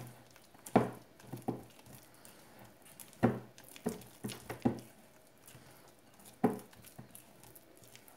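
Silicone spatula stirring chocolate mousse mixture in a glass bowl: soft wet squishing and scraping, broken by several sharper knocks of the spatula against the bowl, the loudest about a second in, about three seconds in and near the end.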